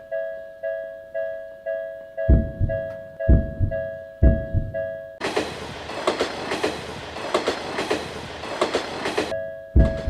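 Railroad crossing bell ringing about twice a second while a train's wheels clack over the rail joints in pairs, coming nearer. About five seconds in, the train rushes past loudly with rapid clatter for about four seconds, and the crossing bell and wheel clacks are heard again near the end.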